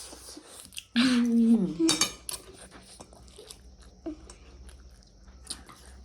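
Spoons and chopsticks clinking and scraping against bowls during a meal, with a cluster of sharp clicks about two seconds in. A short wordless vocal sound, held then falling, comes about a second in and is the loudest thing heard.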